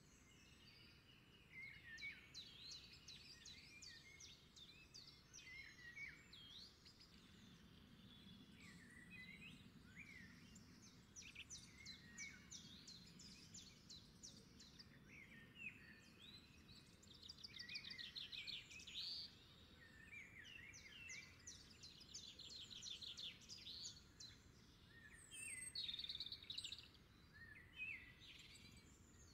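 Faint chorus of several birds singing and calling over one another: quick chirps, short rising and falling whistles and rapid trills, the trills loudest a little past halfway and again near the end.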